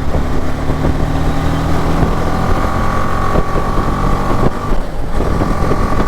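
Single-cylinder engine of a BMW G 310 GS motorcycle running at a steady cruise, with wind rushing on the microphone. The engine note breaks off briefly about four and a half seconds in, then comes back steady.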